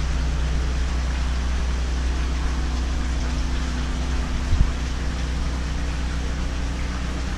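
Gasoline generator (7000 running watts) running steadily with a low hum, under water pouring and splashing from pump return pipes into aquarium tanks. A brief knock about four and a half seconds in.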